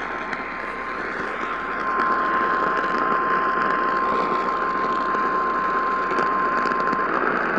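Emergency Alert System attention tone: a single steady tone that cuts off about seven seconds in. It is heard through AM radio reception under heavy static hiss.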